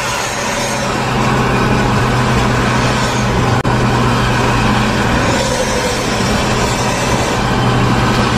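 Steady engine drone and road noise from driving at highway speed close behind a coach. The sound drops out for an instant about three and a half seconds in.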